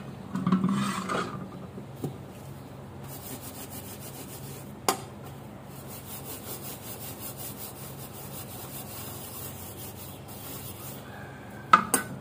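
A scouring pad scrubbing a wooden kitchen utensil in quick, rhythmic rasping strokes. Glassware clatters as it is set down in the first second, with a sharp knock about five seconds in and two more knocks near the end.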